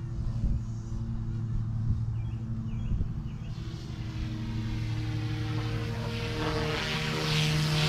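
FlyWing FW200 micro RC helicopter in flight: its direct-drive electric motor and spinning rotor give a steady hum. The hum grows louder and gains a higher whine from about halfway through as the helicopter comes closer.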